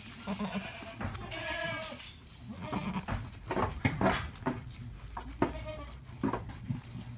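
Alpine goats calling softly, with one drawn-out bleat about a second in, over the wet clicking of a doe licking her newborn kid and the rustle of wood shavings.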